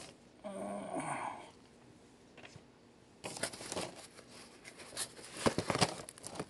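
Packing paper and cardboard rustling and crinkling as a shrink-wrapped Blu-ray case is pulled out of a shipping box, in two bursts, the second the louder. A short low vocal murmur comes near the start.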